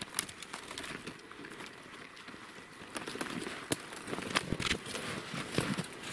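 Footsteps crunching through snow in brush, with irregular sharp clicks of twigs and branches brushing and snapping; sparse at first, busier from about three seconds in.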